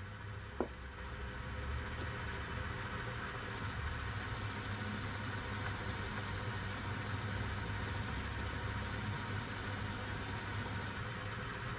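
Metal lathe running steadily while a high-carbon steel D-bit in a tailstock drill chuck bores into the spinning workpiece, cutting cleanly; a single short tap less than a second in.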